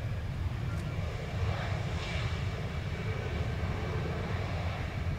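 Jet airliner engines, a steady low rumble with a faint high whine above it.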